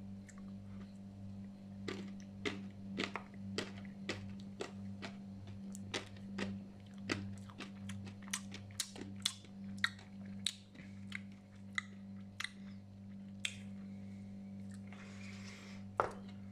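A plastic spoon clicking and scraping in a paper cup of rolled ice cream: irregular crisp taps, one or two a second, over a steady low hum, with one louder click near the end.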